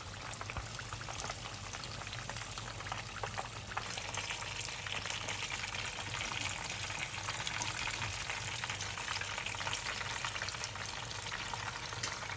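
Spring rolls deep-frying in hot oil in a pan: a steady, dense sizzle and crackle, slightly louder from about four seconds in.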